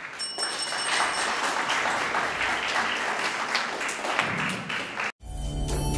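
Audience applauding, a hall full of people clapping steadily. The applause cuts off abruptly about five seconds in, and music starts.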